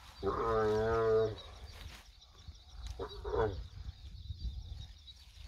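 She-camel moaning: one long wavering call of about a second near the start, then a shorter one about three seconds in. These are distress calls made while her prolapsed uterus is being pushed back in by hand. A faint steady high chirring runs behind.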